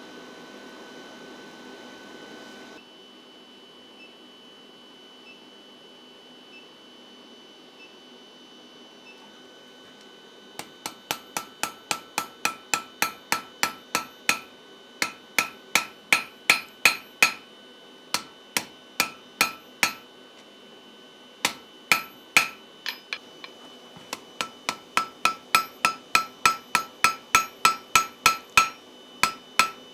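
An induction forge hums with a steady high whine, then switches off about three seconds in. After a lull, a hammer strikes hot iron on the anvil in quick runs of ringing blows, about three a second, with short pauses between runs. This is forge welding: iron leaves being hammered onto a rose stem.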